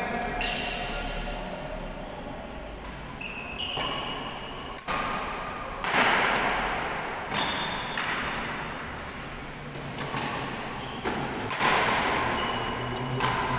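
Badminton rally: rackets striking a shuttlecock, a sharp hit every second or two that echoes around a large hall, with short high squeaks from shoes on the court floor between the hits.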